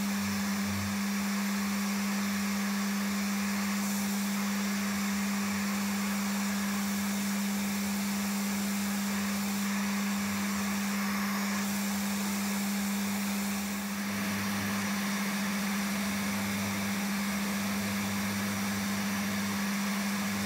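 AL960B mill-drill running steadily with a constant hum while its drill bit cuts into a raw casting.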